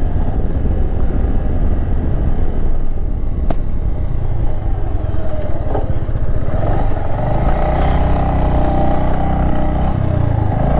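Motorcycle engine running while riding, over a steady low rumble. Its pitched engine note grows clearer about seven seconds in.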